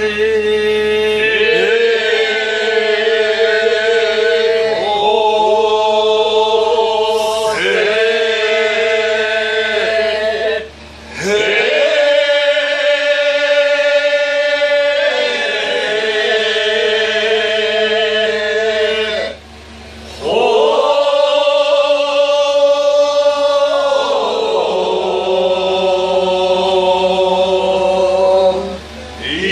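Tezutsu kiyari-uta, a traditional Japanese work chant, sung in long, drawn-out, wavering notes, with short breaks about 11 and 20 seconds in.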